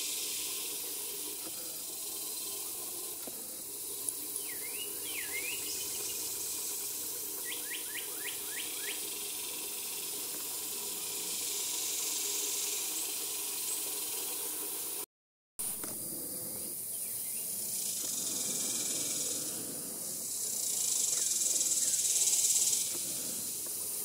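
A steady, high-pitched insect chorus in the woods that swells louder twice, once about halfway through and again near the end. A few short bird calls come about four to five seconds in, followed by a quick run of about five notes a few seconds later. The sound cuts out for a moment about two-thirds of the way through.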